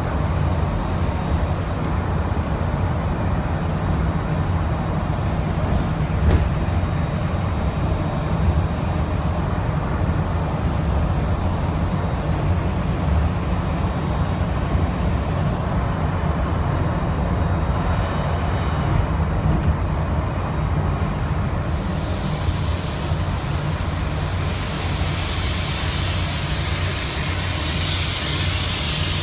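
Disney monorail train running, heard from inside the passenger car: a steady low rumble. About three-quarters of the way through, a high-pitched hiss builds up and grows louder.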